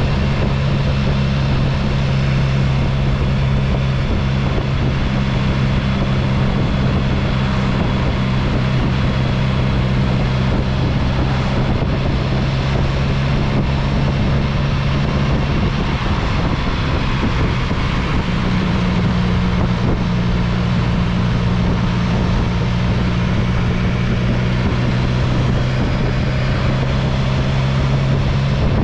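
Motorcycle engine running at a steady cruising speed under a rush of wind noise. About two-thirds of the way through the engine note blurs briefly and then settles again a little higher.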